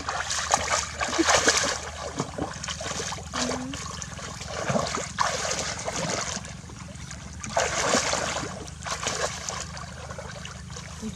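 Shallow water splashing in irregular bursts every second or two, with trickling in between, as of hands and legs moving through water while catching fish by hand.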